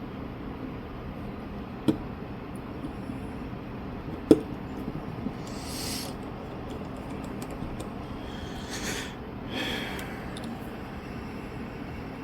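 Small tools and phone parts clicking and tapping on a workbench during a phone repair, with one sharp click about two seconds in and a louder one about four seconds in, followed by a few lighter ticks. Three short breaths are heard later on, over a steady background hum.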